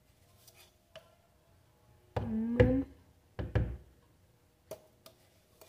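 A spoon scooping powdered milk from a metal tin and tipping it into a plastic blender jar: a few light knocks and taps, with two louder scraping clunks in the middle.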